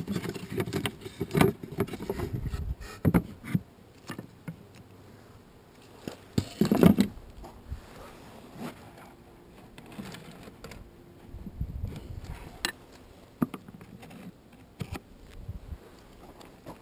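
Wooden top bars of a top-bar hive being shifted and set into place by gloved hands: irregular wood-on-wood knocks, clicks and scrapes, with a louder thump about seven seconds in.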